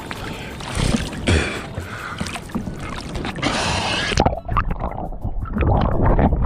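Sea water sloshing and splashing around a camera held at the surface as a free diver swims, with several louder splashes in the first few seconds. About four seconds in, the sound turns dull and muffled as water washes over the camera.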